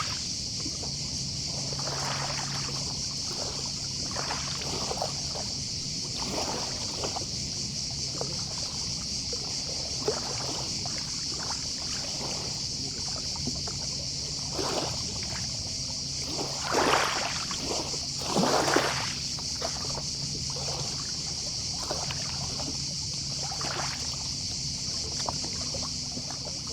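Small sea waves lapping and washing onto the beach every second or two, with two bigger washes about two-thirds of the way through. Behind them runs a steady high chorus of distant cicadas, and under it all a faint steady low hum.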